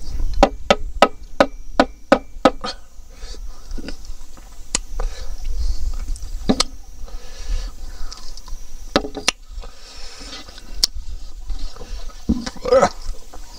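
Close-up wet chewing and lip smacking while gnawing meat off pork rib bones by hand. A quick run of sharp smacks comes in the first couple of seconds, then slower scattered ones, over a low rumble.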